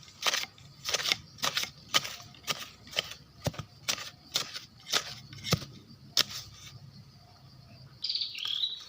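Footsteps crunching on dry forest leaf litter, about two steps a second, stopping about six seconds in. Near the end a brief high chirping trill is heard.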